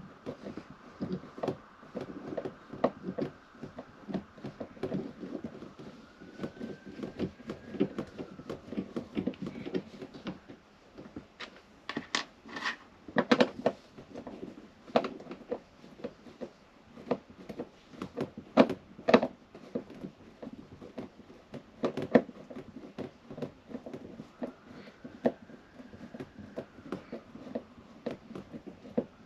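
Hand screwdriver undoing the screws of caravan window catches: irregular small clicks, scrapes and knocks of the tool and the plastic catch, with a few sharper knocks.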